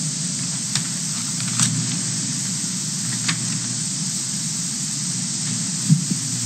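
Steady hiss with a low hum beneath it and a few faint clicks, with no speech. This is the noise floor of the room's playback and broadcast feed as the victims' video begins.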